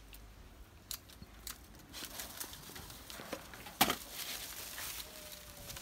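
Footsteps on dry leaf litter and soil, irregular light steps and rustling with a louder sharp snap about four seconds in.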